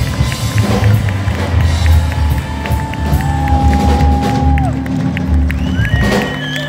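Live rockabilly band playing: an upright double bass slapped in a quick, clicking rhythm over drums, with electric guitar and piano. A single note is held for about a second and a half in the middle.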